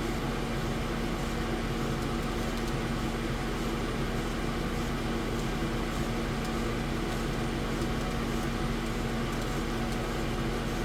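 AtomStack Hurricane 55 W CO2 laser engraver running: a steady mechanical hum with one constant low tone.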